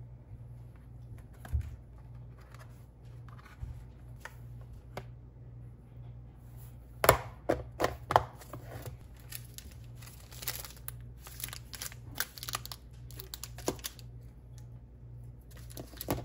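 Plastic lunch container being packed and snapped shut: a run of sharp plastic clicks as the lid is pressed down, then crinkling of wrappers as a granola bar and ice pack are set on top. A low steady hum runs underneath.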